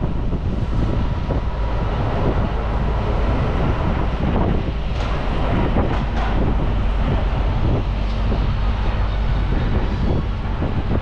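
Wind buffeting the microphone over a steady low rumble of road traffic.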